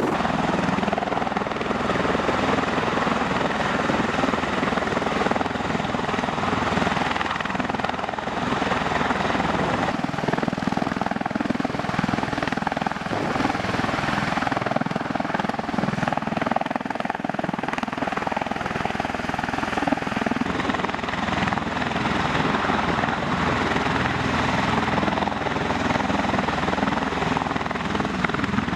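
MV-22 Osprey tiltrotor hovering low, its proprotors and turboshaft engines making a steady, loud drone.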